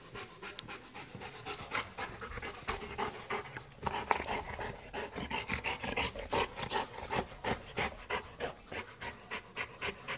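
Golden retriever panting rapidly, about three breaths a second, winded after a hard game of fetch.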